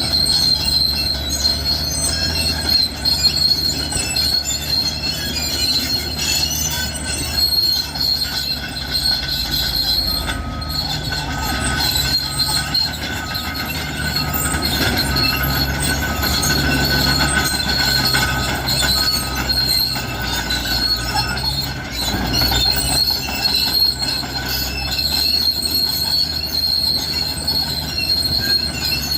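Cat D6R crawler bulldozer working, its diesel engine running steadily under a constant high squeal from the steel tracks. A reversing alarm beeps about once a second for some ten seconds in the middle.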